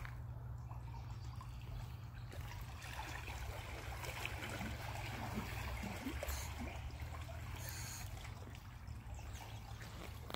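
Pool water sloshing and trickling around a scuba diver in a drysuit as he wades through waist-deep water, over a steady low hum.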